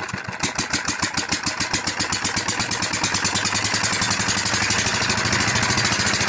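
Old diesel engine of a tube-well pump set running with a regular firing beat. About half a second in, the beat quickens and grows louder as the engine picks up speed, then holds steady.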